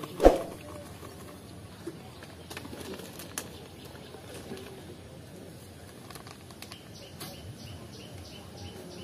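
A single sharp knock about a third of a second in, then soft handling sounds of a plastic bag of dry bait meal being emptied into an aluminium bowl, with faint bird calls in the background.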